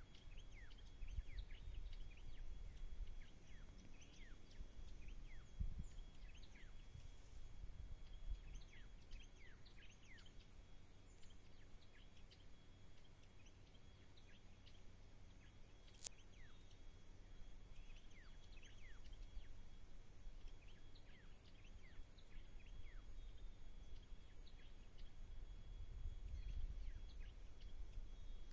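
Wild birds chirping: many short, quick chirps, each sliding down in pitch, scattered throughout over a low rumble, with one sharp click about two-thirds of the way through.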